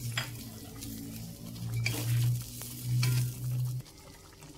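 Metal spatula stirring and scraping fried eggs in simmering spiced sauce in an aluminium wok, with a few short scrapes against the pan. A steady low hum swells twice and stops about four seconds in.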